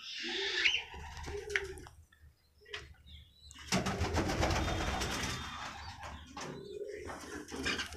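Caged fancy pigeons cooing, in low repeated calls. About halfway through comes a louder burst of scratchy, clicking noise.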